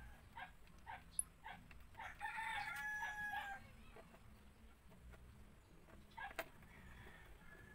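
A rooster crowing once, a held call of about a second and a half starting about two seconds in, after a steady run of short clucks. A single sharp knock comes near the end.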